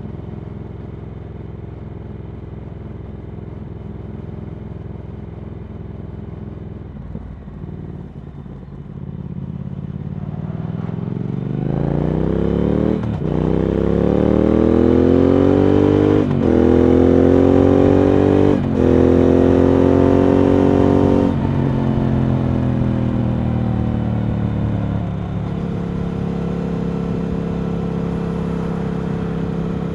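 2019 Triumph Speed Twin 1200's parallel-twin engine through Vance & Hines slip-on exhausts, on the move. It runs steady, then accelerates hard with rising pitch, broken by three short breaks as it shifts up. It then eases off with falling pitch and settles back to a steady cruise.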